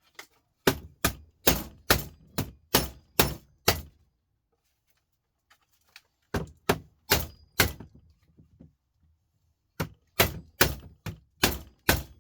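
Hammer blows on a desktop computer power supply's casing, struck about twice a second in three runs with short pauses between, to bust the sealed case open.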